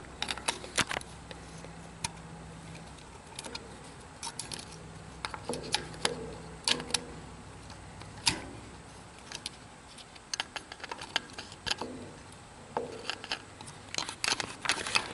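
Irregular small metallic clicks, taps and scrapes of a screwdriver working on the ignition points and condenser inside a Massey-Harris tractor's distributor.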